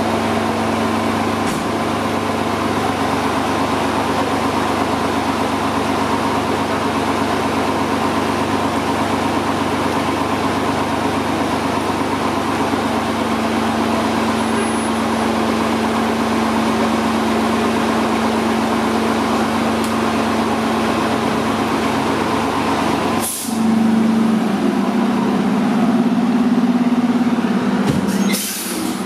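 Diesel engine of a 2021 Seagrave Attacker fire engine idling steadily in the firehouse bay, a constant hum with a steady higher tone. In the last few seconds the engine note gets louder and wavers, with two short sharp hisses.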